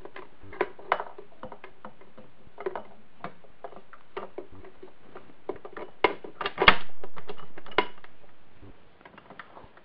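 Metal gears clicking and clinking against each other and the transmission case as they are worked into place by hand inside a 1960 Wheel Horse 3-piece transmission. The clicks are irregular, with a louder cluster about six to seven seconds in.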